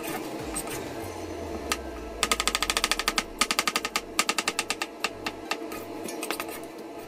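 Knife slicing a cucumber into thin rounds on a cutting board: a few single cuts, then quick, even taps of the blade on the board in runs of about nine a second.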